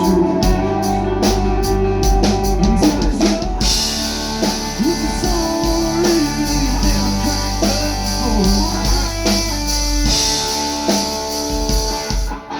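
Live country-rock band playing an instrumental stretch: electric guitar lead with bending notes over drum kit, cymbals and bass. The band stops abruptly near the end.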